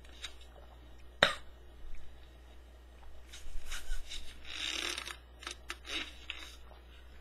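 Drinking through a straw from a large lidded plastic cup. A sharp click comes about a second in, then several short sucking hisses through the straw with small clicks near the end.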